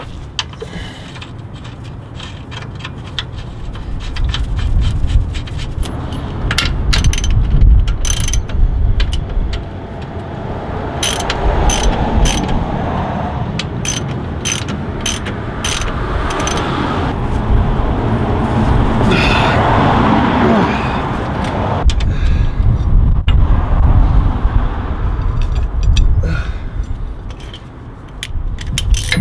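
Spanners working the mounting bolts of a Land Rover panhard arm: a ratchet spanner clicking and metal tools clinking and scraping as the bolts are run in and tightened, with many sharp clicks through the middle.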